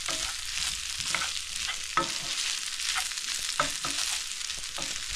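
Paneer fried rice sizzling in a hot pan as it is stirred, with a steady hiss and sharp knocks and scrapes of the spatula against the pan about once a second.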